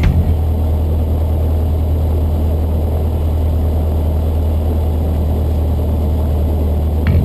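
Cessna 152's four-cylinder air-cooled Lycoming engine running steadily, a deep, even sound without change in pitch.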